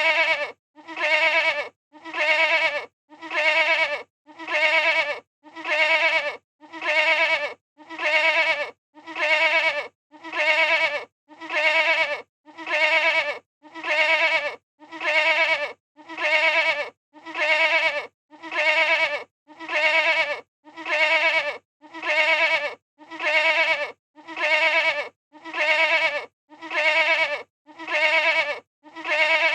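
Goat bleating: the same wavering baa repeated evenly about once a second, each call a little under a second long with a short silence between.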